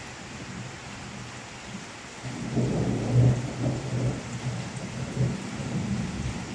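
Thunder rolling over steady rain: a low rumble builds about two seconds in, is loudest a second later, and rumbles on while the rain hisses throughout.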